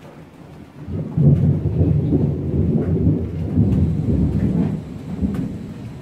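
A long, loud rumble of thunder that swells about a second in and eases near the end, over steady rain.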